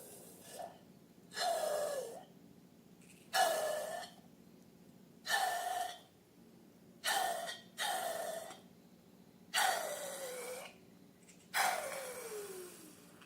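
Seven breathy rushes of air, each about a second long and coming about every two seconds, several ending in a falling tone.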